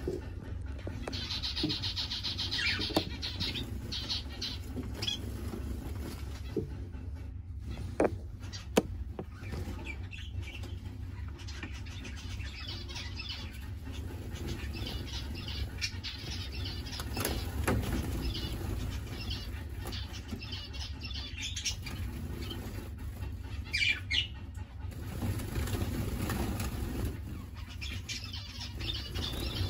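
Small aviary finches, among them Java sparrows, chirping and twittering in short scattered calls over a steady low hum, with two sharp taps about eight or nine seconds in.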